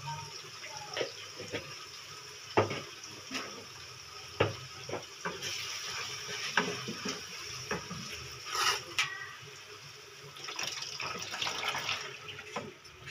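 Tomato masala sizzling in a nonstick kadai while a wooden spatula stirs and knocks against the pan, several sharp knocks throughout. Near the end boiled dal is poured in and the sizzle quiets.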